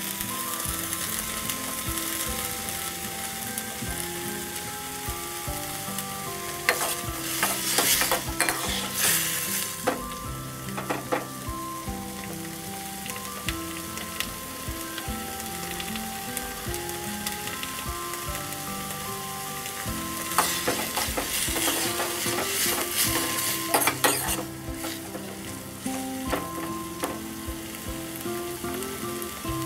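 Chopped tomatoes and dried red chillies sizzling steadily in a little oil in a pan as they fry soft, stirred with a steel ladle that clicks and scrapes against the pan. There are louder bouts of stirring about 7 seconds in and again about 20 seconds in.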